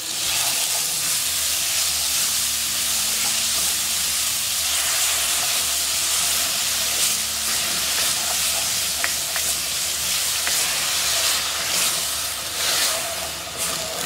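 Onion, tomato and chopped pepper sizzling in olive oil in a metal pan as a steady hiss, stirred with a wooden spoon, with a few light scrapes of the spoon about two-thirds of the way through.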